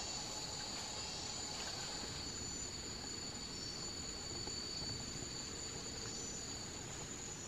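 Steady chorus of forest insects, two constant high-pitched trills of different pitch over a low background hiss.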